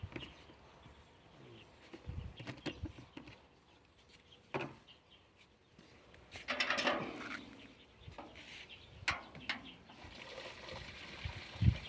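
Scattered clicks and knocks of a plastic knapsack sprayer and metal pail being handled, with a louder rustle about six and a half seconds in. From about ten seconds in, water pours steadily from a stainless steel pail into the sprayer tank.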